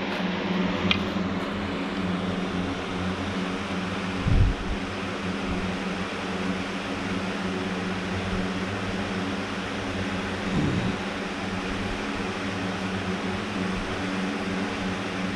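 Steady machine hum, like a fan or air conditioner running, with a steady low tone in it. A single thump about four seconds in.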